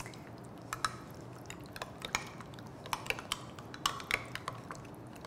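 Metal spoon stirring a thick Greek-yogurt dressing in a Pyrex glass measuring cup, with light, irregular clinks of the spoon against the glass.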